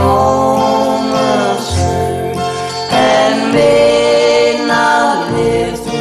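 Country ballad music: acoustic guitar accompaniment under a sustained melody line.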